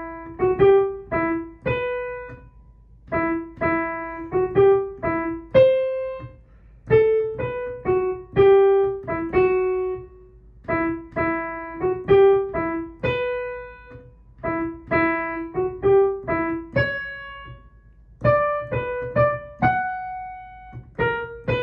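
A piano playing the vocal line of a choral song as a single-note melody in a minor key, one note at a time, each note struck and fading, with a brief pause about three-quarters of the way through before the line goes on.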